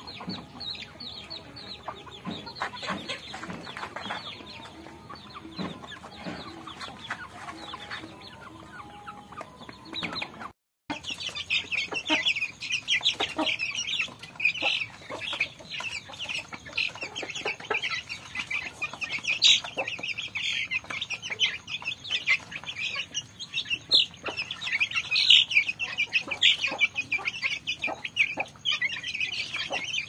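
Chickens clucking while pecking at feed, with scattered clicks. About a third of the way in the sound changes to a crowd of young chicks peeping continuously, high and dense.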